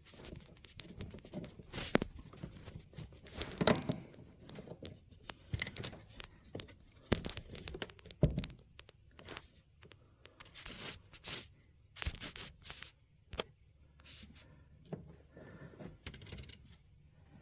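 Irregular clicks, scrapes and rustles of hands and pliers at work, sliding a hose clamp onto a rubber heater hose over its metal connector.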